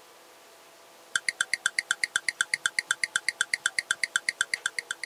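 A rapid run of short, bright two-note blips alternating high and low, about nine a second, starting about a second in and fading near the end: a comic sound effect dubbed in editing, not a sound of the cats.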